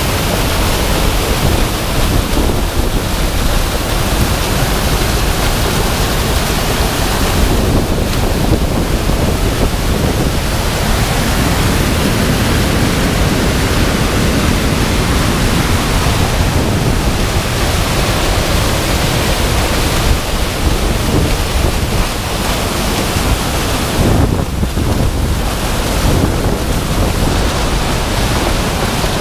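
Flood-tide seawater pouring over a stone sill and rushing through a culvert under a causeway: a loud, steady rush of churning white water.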